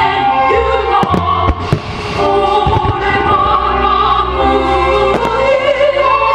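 Choral singing with orchestral accompaniment, overlaid by sharp firework bangs: a cluster about a second in, another around five seconds in.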